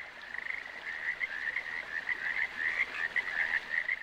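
A dense chorus of small animals calling, many short overlapping calls massed at one high pitch, steady throughout.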